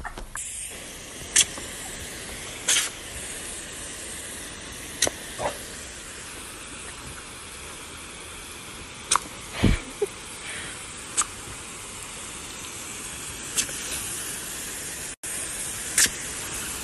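Garden hose spray nozzle hissing steadily as water sprays out, with short sharp clicks and snaps scattered through it and one heavier thump about ten seconds in.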